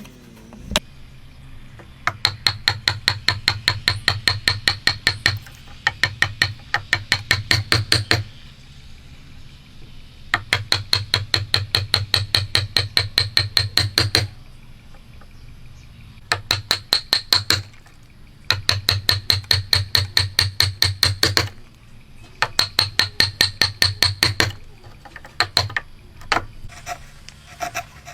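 Hammer striking a chisel in quick, even strokes, about seven a second, in runs of a few seconds with short pauses between them; each strike has a bright ring over a dull knock, as a chisel cuts into a wooden pole by hand.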